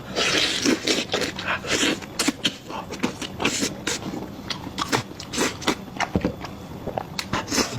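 Close-up eating sounds: irregular wet chewing, smacking and crunching as a person bites and chews food.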